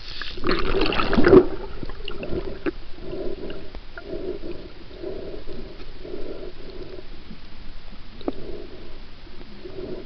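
Swimming heard underwater, muffled through the camera's housing: a loud rush of water about half a second in, then muffled swishes of water about once a second from the swimmer's strokes.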